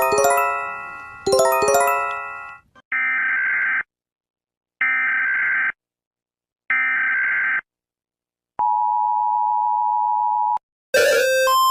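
An Emergency Alert System sequence. Two chime strikes ring out and fade, then three short buzzing data bursts of the alert header sound about a second apart. After them the two-tone EAS attention signal sounds steadily for about two seconds. Near the end a different alert begins, with beeps pulsing between a low and a high pitch.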